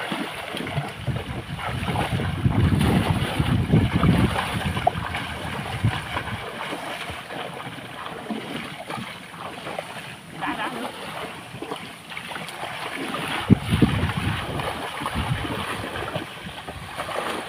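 Water splashing and churning as people wade quickly through a shallow canal, their legs pushing through the water to drive fish into a net. The splashing surges heavier a few seconds in and again near the end.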